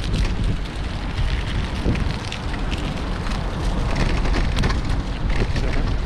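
Gusting wind buffeting the microphone of a camera on a moving bicycle, a heavy low rumble with many short crackles and clicks over it.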